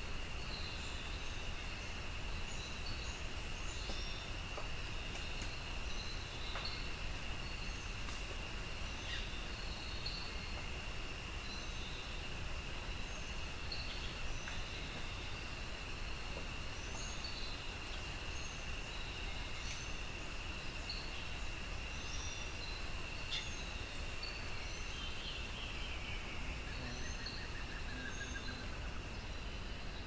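Costa Rican cloud forest ambience: a steady, high insect drone with many short bird chirps scattered over it, and a bird's falling trill near the end, over a low, steady rumble.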